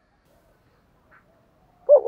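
Spotted dove song: a pause of almost two seconds between cooing phrases, then a short low coo note starts just before the end.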